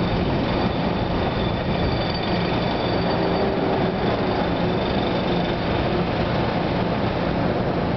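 Metro-North electric multiple-unit train of M2, M4 and M6 cars standing at a station platform, its onboard equipment humming steadily with a few faint, even tones.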